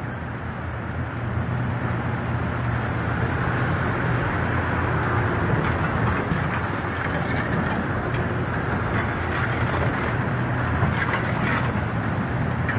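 Fast muddy floodwater rushing past, a loud steady roar with a low rumble underneath and some sharp clicks in the second half.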